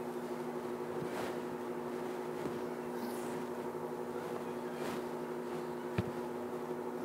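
A steady hum of several held tones, with a few soft swishes of fingers raking through wet, gel-coated curly hair and a small click about six seconds in.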